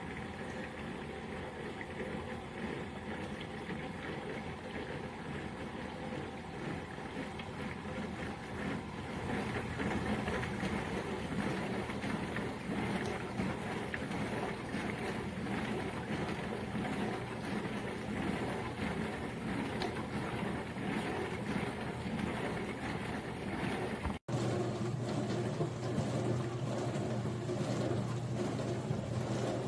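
Countertop dishwasher running a wash cycle: water spraying and sloshing inside, over the hum of its pump motor. The sound grows louder about a third of the way in. It cuts out for an instant near the end, then comes back with a stronger, steadier hum.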